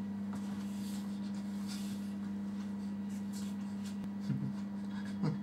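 Steady low electrical hum with faint rustling, and two brief low sounds near the end.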